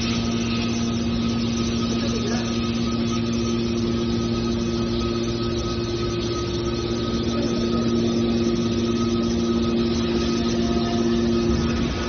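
Metal baler machinery running: a steady mechanical hum with constant whining tones.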